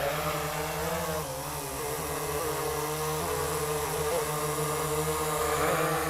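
Autel Evo 2 Pro quadcopter's four propellers humming as it takes off and hovers: a steady buzz with small wavers in pitch as the motors adjust.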